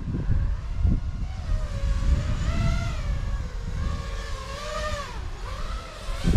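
Motors and propellers of a 6S-powered FPV quadcopter whining, the pitch rising and falling smoothly with throttle, over low wind rumble on the microphone. A short thump comes right at the end.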